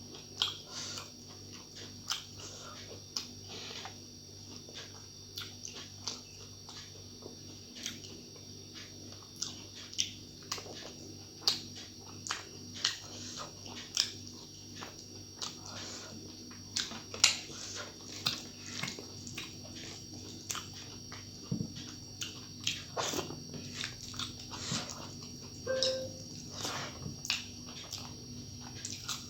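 Close-up eating sounds: chewing with wet mouth clicks and smacks, irregular and about one or two a second, as rice and curry are eaten, over a steady faint hum.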